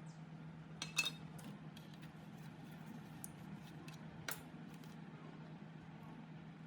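Metal parts clinking and knocking against each other as they are handled: a sharp clink with a short ring about a second in, another near the middle, and a few light ticks, over a steady low hum.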